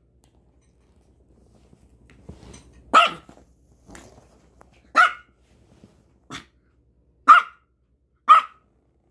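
Small white Maltese barking sharply at its owner five times, a second or two apart, with a faint low grumble before the first bark. This is the demanding, quarrel-picking bark of a dog pestering its owner.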